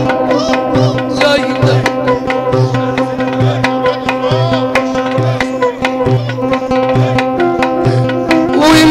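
Instrumental interlude in Egyptian Sufi devotional music: hand drums beat a quick, steady rhythm under a held drone and a wavering melodic instrument line. The singer's voice comes back in right at the end.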